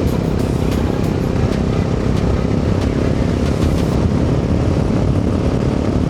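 Riding noise of a motorcycle on the move, picked up by a lavalier mic inside the rider's helmet with noise reduction off: a steady, loud low rumble of wind buffeting, with the bike's exhaust note mixed in.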